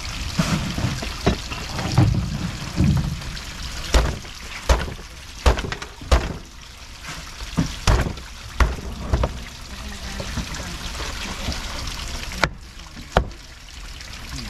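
Cleaver chopping fish on a cutting board: about a dozen sharp knocks at uneven intervals, over trickling water.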